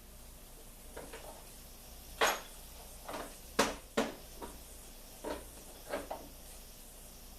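Metal hand tools and chainsaw parts clinking and knocking as they are handled: about nine sharp, irregular knocks, the loudest a little over two seconds in and two more around three and a half to four seconds in.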